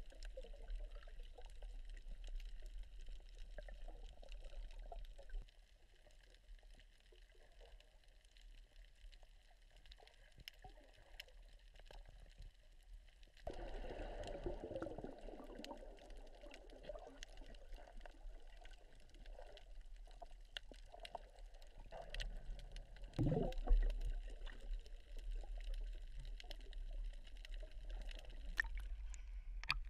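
Underwater ambience picked up by a submerged camera: muffled water noise with many faint scattered clicks. The sound grows louder about halfway through, and there is a single dull knock about two-thirds of the way in.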